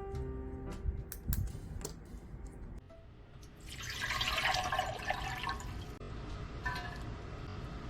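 Kitchen tap running into a sink for about two seconds, from a little past the middle, after a few light clicks and knocks.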